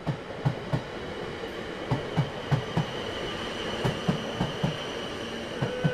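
Train running on rails: a regular clickety-clack of wheels knocking over rail joints in repeating groups, over a steady rolling hum.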